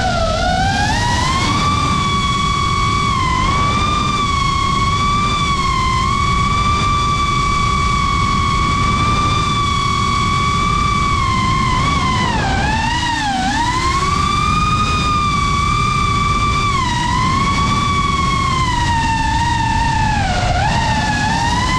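FPV drone's motors and propellers whining, heard from the drone itself over a steady low rush of wind. The pitch mostly holds high and level, then dips and recovers several times as the throttle is eased and reapplied, most deeply about two-thirds of the way through.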